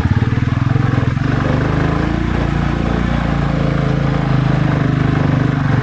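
Motorcycle engine running steadily under load while climbing a steep grade with two riders aboard.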